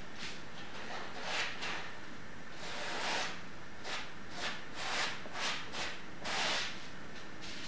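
Metal palette knife scraping and spreading thick acrylic paint across a canvas in short strokes, about ten in all, with two longer strokes about three seconds in and about six and a half seconds in.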